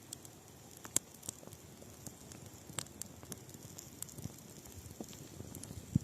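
Wood campfire crackling: scattered sharp pops at irregular moments over a faint hiss.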